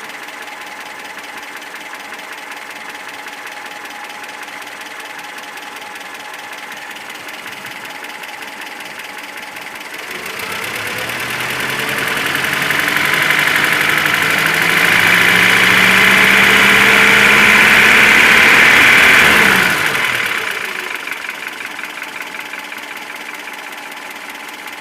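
ZMZ-402 four-cylinder petrol engine idling, then revved up from about ten seconds in, held high, and dropped back to idle near twenty seconds, with a knock that comes and goes. The owner traced the knock to play between the piston pins and connecting rods in all four cylinders.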